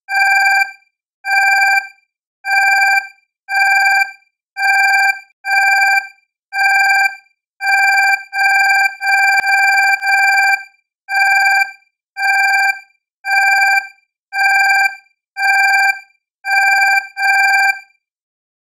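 Electronic beeping: one steady-pitched tone of about half a second, repeated about twenty times at roughly once a second with uneven spacing, then stopping shortly before the end.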